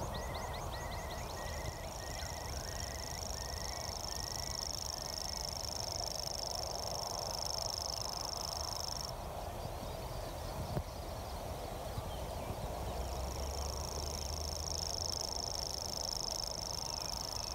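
Grasshopper warbler reeling: a high, steady, unbroken trill that starts about two seconds in, runs for about seven seconds, stops, and starts again a few seconds later. Another bird gives short repeated notes in the first few seconds, with wind rumbling on the microphone throughout.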